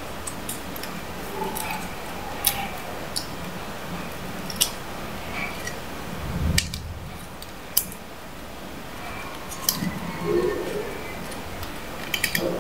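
A paper banknote being folded and creased by hand: scattered crisp crackles and snaps of the stiff paper, with a quick cluster of them near the end, over a steady low hiss.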